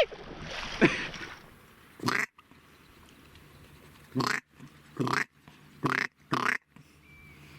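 Short duck quacks, five of them spread over several seconds with quiet between, after a brief sliding squeal about a second in.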